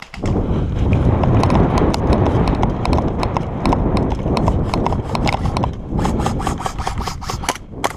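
Rhythmic running footsteps and rattling gear close to the microphone, over heavy rumbling handling noise, starting suddenly at the outset with a fast patter of knocks near the end.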